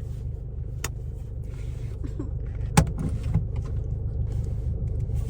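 Steady low rumble of a car heard from inside the cabin, with two sharp clicks, one about a second in and a louder one near the middle.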